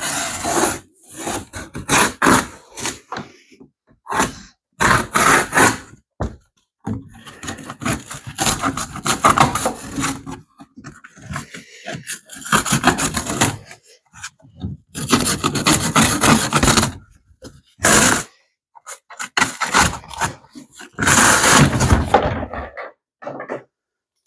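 Cardboard shipping box being opened and emptied: irregular bursts of scraping and rubbing as cardboard and packed parts are pulled and dragged, with short pauses between them.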